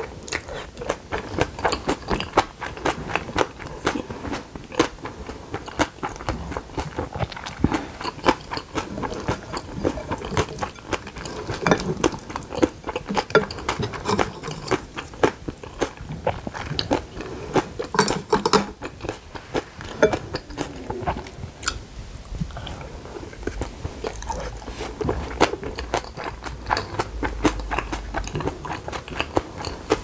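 Close-miked chewing of a mouthful of bibimbap and green onion kimchi, with many quick wet mouth clicks.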